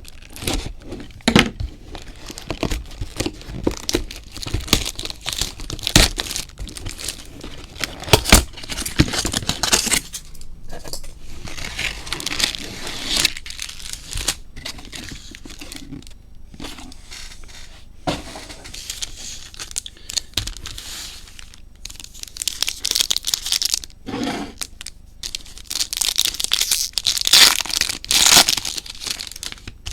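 Plastic wrapping being torn and crinkled as a sealed box of trading cards and its foil packs are opened, in repeated noisy bursts with scattered clicks and knocks from handling.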